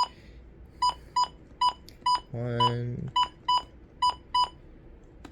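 Midland WR-100 weather radio beeping with each button press while its clock is set: about a dozen short, identical high beeps at an uneven pace, with one longer, lower tone a little past the middle.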